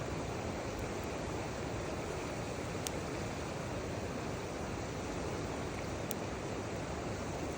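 Steady rush of river water, with two sharp pops from a small wood fire, about three seconds in and again about six seconds in.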